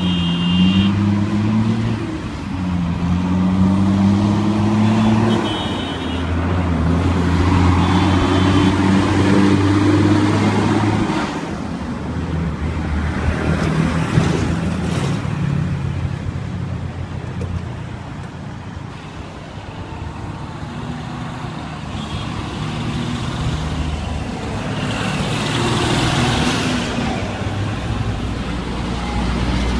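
Busy road traffic with trucks and cars accelerating past. The engine pitch rises and drops several times in the first ten seconds as they change gear, then passing vehicles swell and fade twice.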